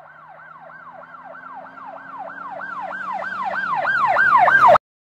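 Emergency vehicle siren in a fast yelp, about three wails a second, growing steadily louder, then cutting off abruptly just before the end.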